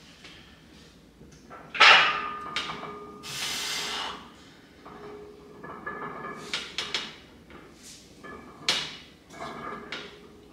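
Loaded barbell unracked from the power rack's hooks with a sharp metal clank about two seconds in, followed by knocks and clinks of the bar and iron plates and the lifter's breathing through a set of bench press reps.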